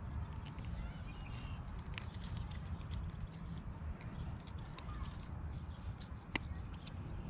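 Fishing pliers clicking and scraping against a hook as it is worked out of a bass's mouth: scattered small clicks, with one sharper click a little after six seconds in, over a steady low rumble.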